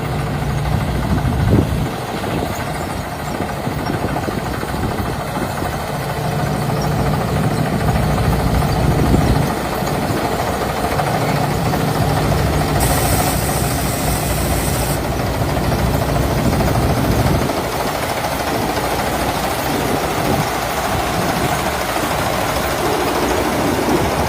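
A new combine harvester's engine and machinery running steadily, with a brief high hiss for about two seconds midway.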